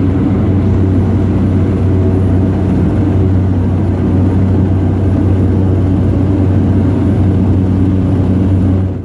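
Aircraft engine running steadily with a loud, low, even hum that holds unchanged, fading out at the very end.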